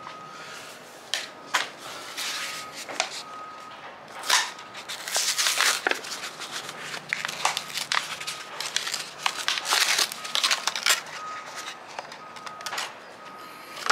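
Crinkling and rustling with scattered clicks and knocks, busiest in the middle: handling noise from work on the mower.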